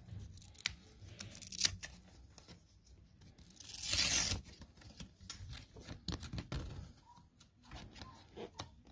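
A Velcro strap ripping apart once, a rasping burst of under a second about four seconds in, among light clicks and knocks of handling.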